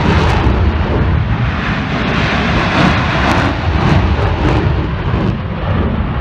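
Several Navy F/A-18 Hornet fighter jets taking off in formation, their jet engines at takeoff power. The sound is a loud, dense rumble with a ragged crackle running through it.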